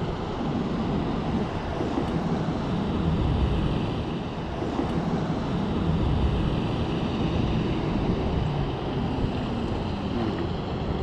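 Wind rushing and buffeting the microphone, with choppy lake water lapping around a kayak.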